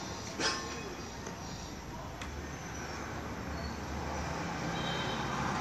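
Steady outdoor traffic noise, with one sharp ringing knock about half a second in and a low hum that grows slightly louder in the second half.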